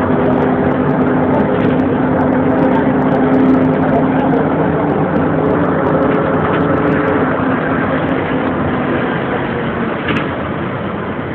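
Diesel engine of an old Ikarus articulated city bus running loudly under way, heard from inside the passenger cabin. A steady engine hum runs through the rumble and rattle of the bus and fades about eight seconds in as the noise eases off.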